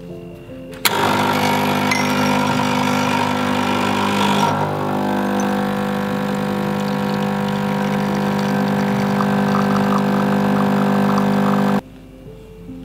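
Espresso machine's pump running while pulling a shot: a steady hum that starts about a second in and cuts off abruptly near the end. Over the first few seconds it carries a hissing layer.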